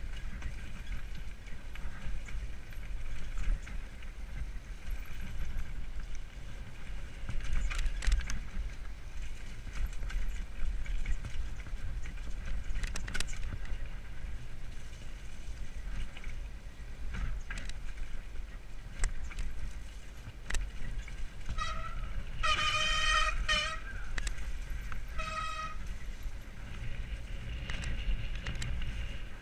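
Mountain bike descending a dirt forest trail, heard from a helmet camera: steady wind buffeting and tyre rumble, with knocks and rattles over bumps. About 22 seconds in, disc brakes squeal in three short honking tones, the middle one longest, as the rider brakes for a berm.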